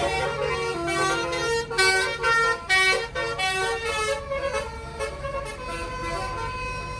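A bus's Basuri telolet musical horn playing a quick melody of changing notes, loudest about two to three seconds in and then softening into held notes, over the low running of the bus engine.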